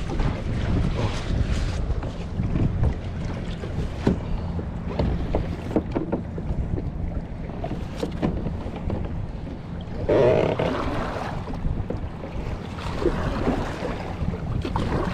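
Wind rumbling on the microphone and choppy water slapping against a plastic sit-on-top kayak, with scattered light knocks and a louder burst of water noise about ten seconds in.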